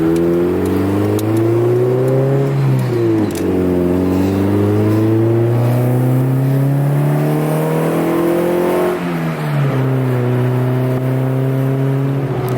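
Honda Civic's D15B1 four-cylinder engine pulling under acceleration, its exhaust note rising through the revs and dropping at two upshifts about three and nine seconds in, then holding a steady pitch. The exhaust runs through a crushed side-exit muffler.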